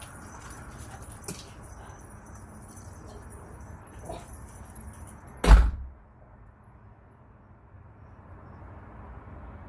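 A metal rooftop door slams shut with one heavy thud about halfway through, after a few faint clicks; afterwards only a low steady background hum remains.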